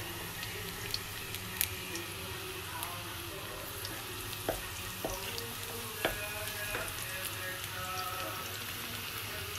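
Garlic slices and red chilli flakes sizzling in hot oil in a non-stick wok, a steady frying hiss. A wooden spoon stirs and knocks against the pan a few times.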